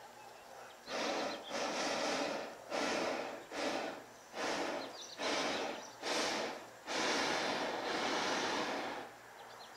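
Hot air balloon's propane burner firing in repeated blasts of roaring hiss, about eight short bursts with brief gaps, the last one held for about two seconds.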